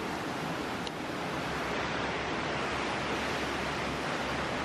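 Fast river rushing through whitewater rapids below, a steady even wash of water noise.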